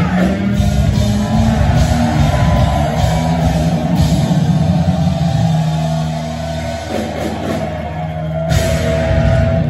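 Rock band playing live at full volume: electric guitars, bass guitar and drum kit, with a sudden loud hit near the end.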